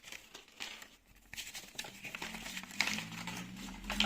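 Paper instruction leaflet rustling and crinkling as it is handled and leafed through, with scattered light clicks.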